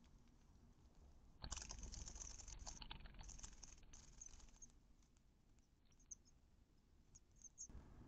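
Faint rustling and fine scratchy ticks at a house finch nest as the female feeds her nestlings, busiest for about three seconds starting a second and a half in, with a few thin, high begging peeps from the chicks.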